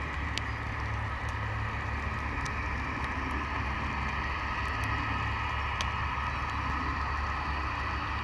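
BAe 146-200's four Lycoming ALF 502 turbofan engines running steadily as the jet taxies, a steady whine over a low rumble.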